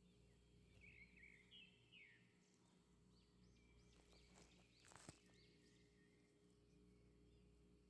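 Near silence: a faint steady low hum with a few faint high chirps, and a single sharp click about five seconds in.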